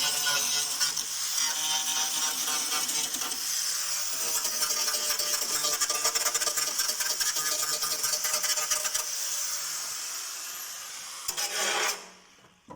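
Angle grinder cleaning corroded car-body metal back to bare steel: a steady, harsh grinding hiss that slowly fades and then stops abruptly near the end.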